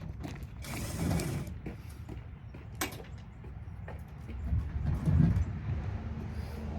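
Creaking and scattered knocks of metal parts being worked as an air-conditioning unit is taken apart, with a brief scrape about a second in and a louder low rumble around five seconds in.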